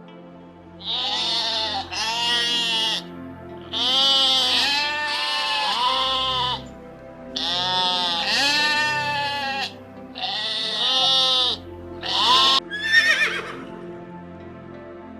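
Sheep bleating, a series of about eight long, wavering bleats with short gaps between them, over background music. Near the end a horse whinnies.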